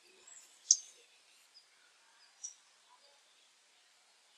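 Two short, high-pitched bird chirps, about two seconds apart, the first the louder, over a faint steady hiss.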